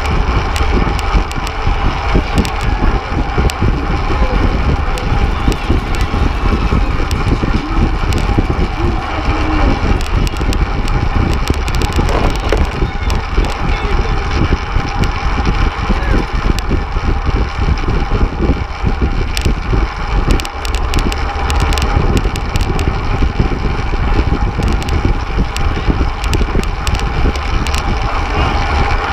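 Wind rushing and buffeting over a bike-mounted action camera's microphone at racing speed, with the hum of tyres and drivetrains from a pack of fixed-gear bikes.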